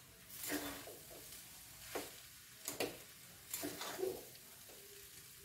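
Long metal spatula stirring boiled rice in a metal kadai, giving several short scrapes and taps against the pan, with quiet between them.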